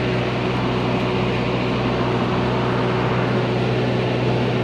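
Steady mechanical drone of running machinery: a constant low hum with an even noisy wash over it, unchanging in pitch and level.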